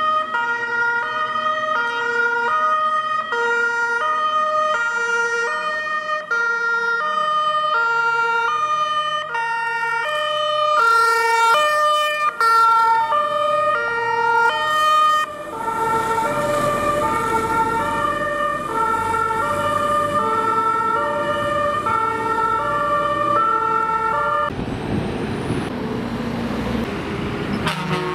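German two-tone fire engine horn (Martinshorn) sounding its steady high-low alternation, about one high-low cycle every second and a half. For a few seconds two horns overlap out of step, then engine and tyre noise on the wet road rises as the fire trucks pass, and the horn stops about three-quarters of the way through, leaving the noise of the passing truck.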